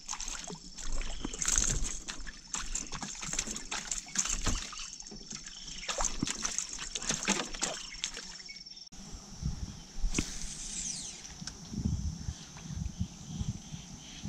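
Water splashing and sloshing at the side of a boat, irregular and fairly loud, over a steady high-pitched hum. About nine seconds in it cuts off suddenly to a quieter outdoor background with scattered ticks.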